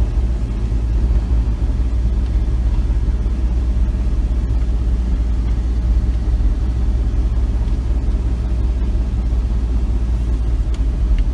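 Steady low rumble of a vehicle's engine and road noise heard from inside the cab while driving.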